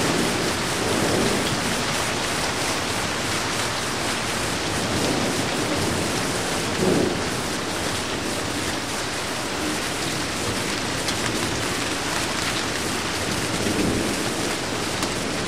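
Rain falling steadily, with thunder rumbling low a few times.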